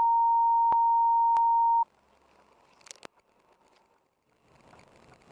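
A steady 1 kHz bleep tone lasting about two seconds, the kind used to censor swearing in a video. After it comes faint road noise with two sharp clicks about three seconds in.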